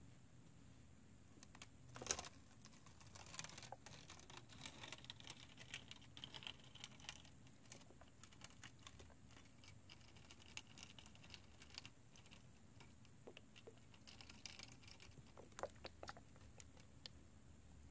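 Near silence broken by faint scattered clicks and crinkles from a plastic bottle and an aluminium-foil tray being handled, with one sharper click about two seconds in.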